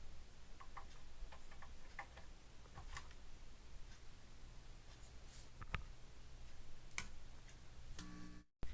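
Faint sharp ticks and clicks, several roughly a second apart, over a low steady room hum; the sound cuts out abruptly near the end.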